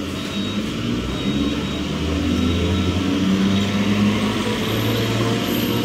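Indian Railways EMU local train running past the platform: steady rumble of wheels on rails with a low motor hum, growing louder.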